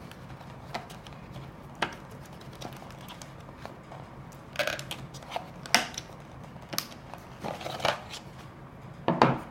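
A product box and its packaging being opened and handled: scattered rustles, crinkles and light knocks at uneven intervals.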